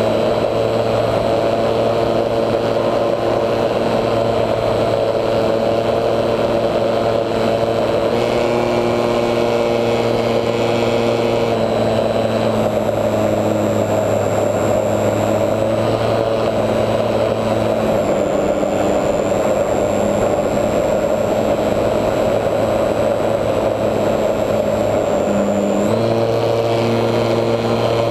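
HobbyZone Super Cub RC plane's electric motor and propeller running steadily, heard from on board with wind rushing over the airframe. The motor's pitch shifts several times: about eight and twelve seconds in, drops around eighteen seconds, and comes back near the end.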